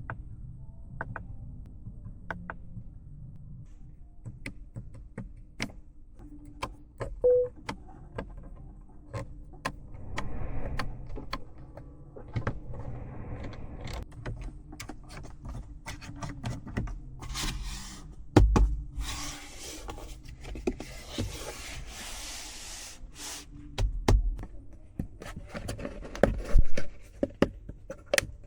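Low tyre and road rumble inside the cabin of a BYD Seagull electric hatchback on the move, with small clicks and rattles throughout. A short tone comes about seven seconds in. A stretch of hiss runs from about seventeen to twenty-three seconds, and several heavy low thumps come near the end.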